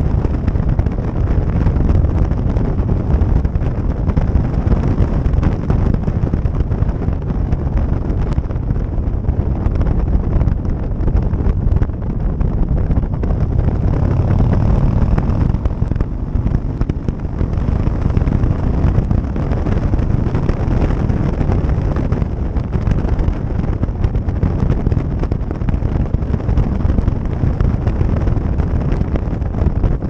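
Wind buffeting the microphone of a camera on a moving motorcycle, a steady low rumble with road and engine noise underneath.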